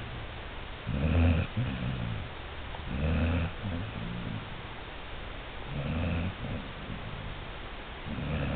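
An animal snoring steadily: three loud low snores about two to three seconds apart, each followed by a softer breath, with a fourth snore starting at the end.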